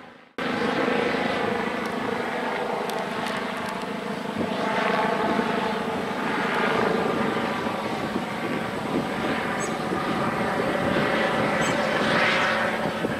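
Eurocopter EC145 twin-turbine helicopter flying overhead: a steady drone of turbines and rotor, swelling and easing a few times as it passes. It cuts in about half a second in.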